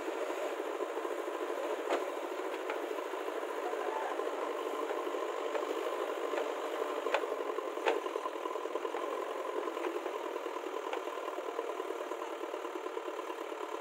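Diesel engines of a JCB backhoe loader and a tractor running steadily, with a few sharp clanks; the two loudest come close together a little past halfway.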